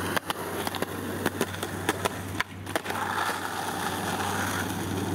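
Skateboard on street pavement: a run of sharp clacks and knocks from the board and wheels for the first two seconds or so, then steady wheel rolling after a brief drop-out. A steady low hum sits underneath.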